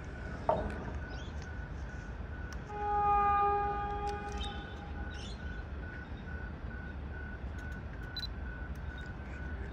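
A train horn sounds once, for just under two seconds, about three seconds in, over a steady low background rumble. A short sharp click comes just before, about half a second in.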